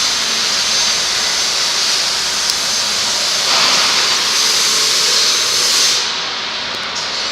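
SIMA CEL45 rebar cutting machine running, a steady loud hissing mechanical noise that shifts slightly in tone about halfway through.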